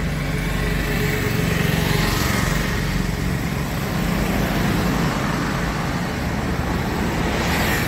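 Roadside traffic: a steady low engine hum with vehicles passing on the road, swelling about two seconds in and again near the end.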